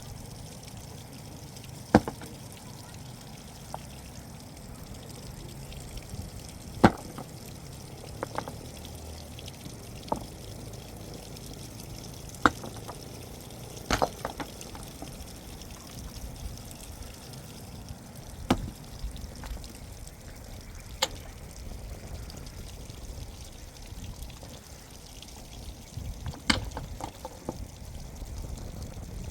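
Scattered sharp knocks or clicks, about a dozen at irregular intervals, over a steady low background noise.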